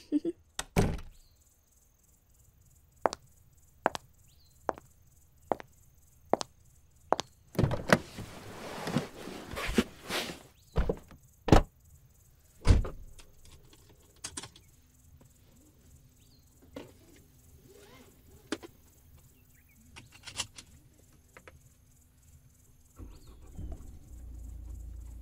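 Footsteps walking away in an even series, then a door opening with a rattle and closing with a few sharp knocks. A low rumble starts near the end.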